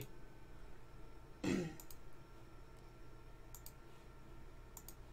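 Faint computer mouse clicks in quick press-and-release pairs, three times, while camera settings are changed to switch off autofocus. About a second and a half in, a person briefly clears their throat.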